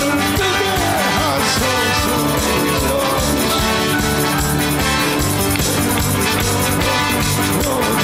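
Upbeat live worship music from a band with a drum kit, playing an instrumental stretch of a Korean praise song.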